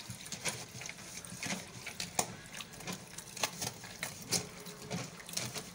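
Wet parboiled beans being washed by hand in a plastic colander, rattling and swishing as the hand stirs and rubs them, in irregular strokes about once or twice a second.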